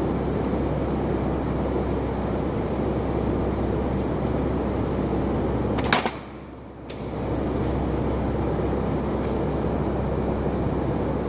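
Steady mechanical running noise with a low hum. About six seconds in there is a sharp click, the noise drops away for about a second, and it comes back after a second click.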